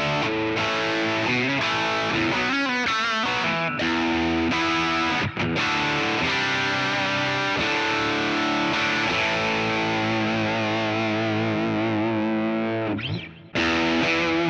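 Overdriven electric guitar played through a Kemper profile of the Fullerton Pro Sound amp's channel 2, with its cascading gain stages. It rings out sustained chords and notes with a wavering vibrato, fades and breaks off about 13 seconds in, then starts again on the next profile.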